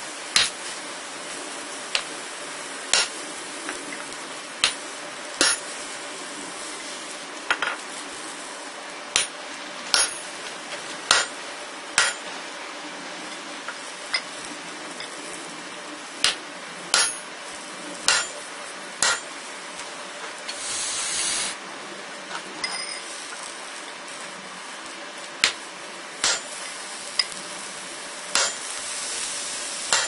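Hand hammer blows on a steel punch driving the eye through a red-hot steel hammer head on an anvil: about twenty sharp metallic strikes, irregularly spaced with short pauses, over a steady background rush. A short hiss comes about two-thirds of the way through.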